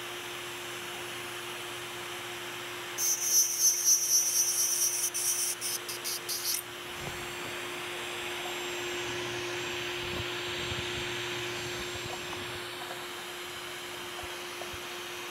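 Dental lab handpiece running at a steady high-pitched whine while its bur grinds and smooths a metal alloy casting. About 3 seconds in, a louder, shrill, stuttering stretch of grinding lasts roughly three and a half seconds, then eases back to a softer grinding hiss.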